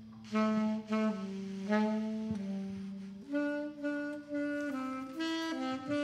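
A saxophone comes in about a third of a second in, playing a melody of held notes over the band's bass and electric guitar in a jazz fusion piece, with the notes stepping up in pitch about halfway through.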